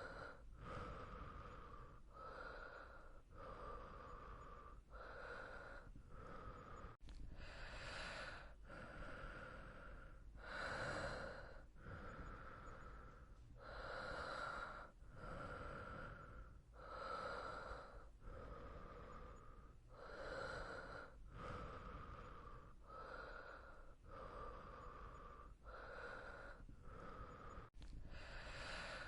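A person breathing steadily in and out, one breath sound about every second, some louder than others, over a faint low hum.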